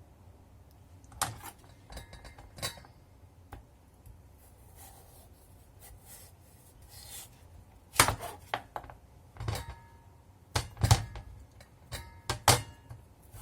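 Kitchen knife cutting a chayote on a chopping board: scattered sharp knocks of the blade meeting the board, two in the first few seconds, then a run of louder ones from about eight seconds in.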